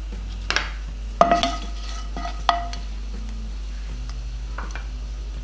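Whole spices sizzling in hot mustard oil in a nonstick frying pan, stirred with a spatula. A few sharp metallic taps ring briefly on the pan.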